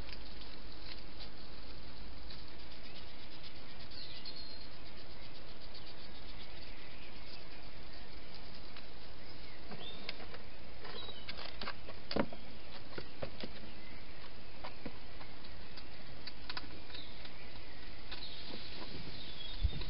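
Steady background hiss with scattered soft clicks and rustles from a wild hedgehog moving into a plastic feeding box, one sharper click about twelve seconds in, and a few faint high chirps.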